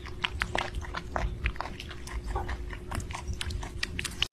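A kitten crunching dry kibble from a bowl: a quick, irregular run of crunches.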